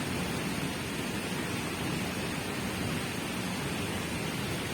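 Steady rush of falling water from a waterfall close by.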